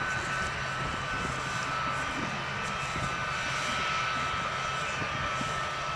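Jet airliner's engines running as it rolls along the runway: a steady rumble with a high, even whine over it.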